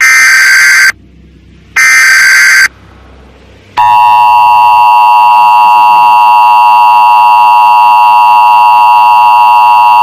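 Emergency Alert System SAME header data bursts, two harsh electronic squawks of about a second each. About four seconds in, the EAS attention signal starts: a loud, steady two-tone alarm that holds without a break.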